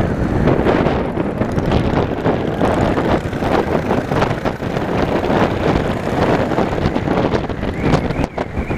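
Motorcycle riding along, its engine under heavy wind buffeting on the microphone.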